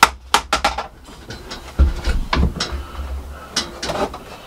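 Wooden offcuts and lengths of trim knocking and clattering together as pieces are shifted on an overhead timber storage rack. There is a quick run of sharp knocks at the start, then a few scattered knocks later.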